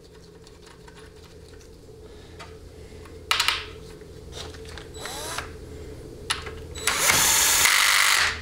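Small power tool spinning in the 13 mm detent roller bolt on a 700R4 transmission valve body, running steadily for about a second and a half near the end. It is preceded by a short rattle and a metallic clank as the bolt is started by hand.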